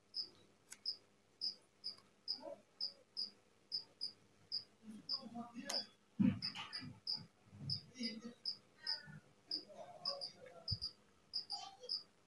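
Insect chirping steadily, typical of a cricket: a short high chirp repeated about two to three times a second. A few soft rustles and a dull knock about six seconds in sit underneath.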